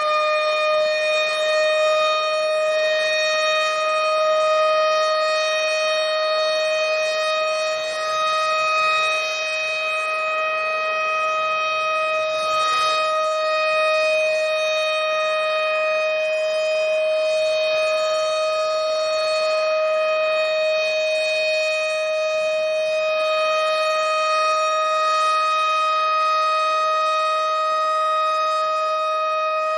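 Tornado warning siren sounding one long, steady tone held at a constant pitch.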